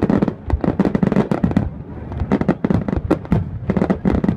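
Aerial fireworks shells bursting in quick, irregular succession, several sharp bangs a second.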